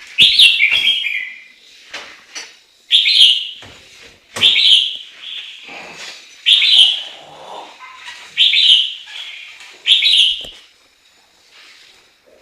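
Chinese hwamei singing: six loud, clear whistled phrases about one and a half to two seconds apart, with softer notes between them.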